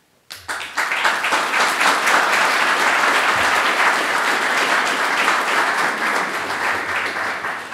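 Audience of seated guests applauding. The applause starts suddenly just after the start, holds steady and dies away near the end.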